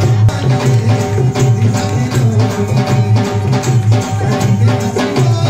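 Rajasthani folk music played live on a harmonium and a hand drum: sustained reedy harmonium notes over a steady, driving drum beat.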